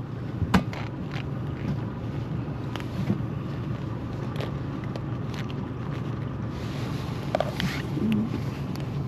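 Steady low hum of a boat engine running, with scattered short clicks and knocks.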